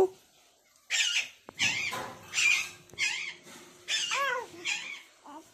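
A baby squealing and babbling: about six short high-pitched calls, each rising and falling in pitch, with brief pauses between them.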